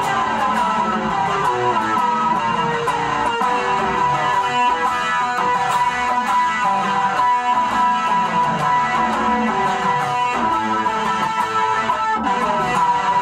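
Six-string guitar being played continuously: a steady flow of notes at an even loudness.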